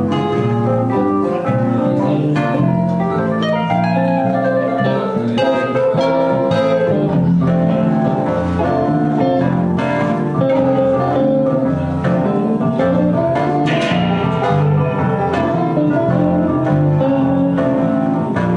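Live instrumental band music: electric guitars and an electronic keyboard playing together in a steady groove.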